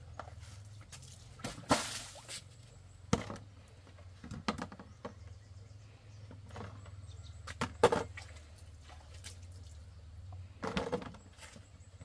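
Scattered knocks, clatters and short scrapes of a cleaver against a plastic basin and its contents, with the loudest knocks a little under 2 seconds in and about 8 seconds in.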